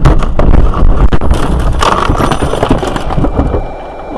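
Loud vehicle and road noise with a run of knocks and clattering, dying down in the last second.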